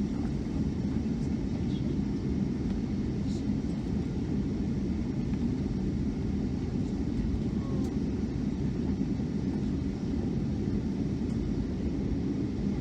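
Steady low rumble of engine and airframe noise inside the cabin of a Boeing 757-200 with its engines running at a constant setting. There is no spool-up or change in level.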